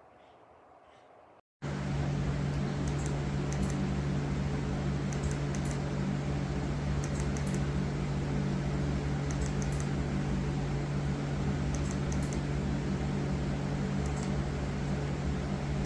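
ocioc 22-inch ceiling fan running with a steady motor hum that starts abruptly about one and a half seconds in, after faint room noise. Faint high clicks come in small clusters every couple of seconds over the hum.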